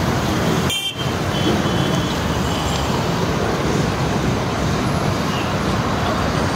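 Steady roadside traffic noise, with a brief cut-out about a second in.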